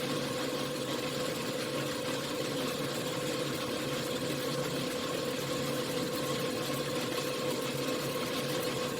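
1953 Logan 12 x 24 engine lathe running steadily under power, with a constant whine from the motor and spindle drive.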